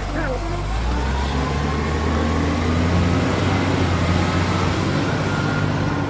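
Heavy truck engine running steadily with a deep low rumble.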